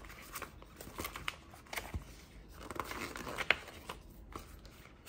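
Paper practice sheets and instruction booklets rustling and sliding against each other as they are handled and spread out, in irregular rustles with a sharper crackle about three and a half seconds in.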